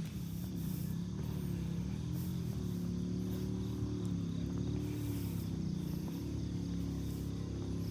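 A vehicle engine runs steadily, its pitch rising and falling slowly as it changes speed. Insects and a few faint bird chirps can be heard above it.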